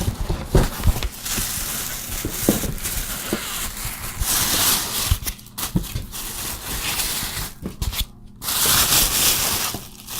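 Styrofoam packing and cardboard rubbing, scraping and creaking as the packing is worked loose and pulled out of a large shipping box. It comes in several scratchy bursts about a second or two long, with a few knocks in between.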